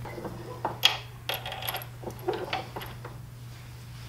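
Light metallic clinks and taps of small steel bolts knocking against each other and against a bench vise as they are set between its jaws, a handful of separate clicks.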